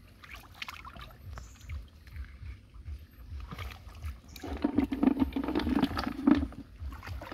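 Hands groping and splashing through shallow stream water, feeling along the muddy bottom for freshwater snails, with the water sloshing around them. The splashing gets louder about four and a half seconds in.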